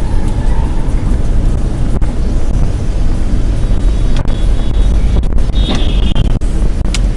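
Steady road and engine rumble of a moving car as picked up by a dashcam's microphone, with a few sharp clicks and a brief high tone a little before the end.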